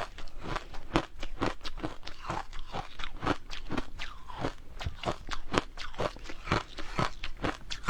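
Matcha ice cubes being bitten and chewed close to the microphone: rapid, irregular crunches and cracks, several a second.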